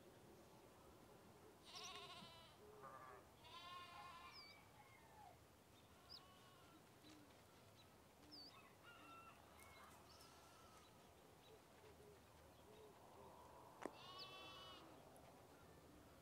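Faint bleating of a farm animal, three wavering calls: about two seconds in, about four seconds in, and near the end. A few short high chirps come between them, and a single sharp click just before the last call.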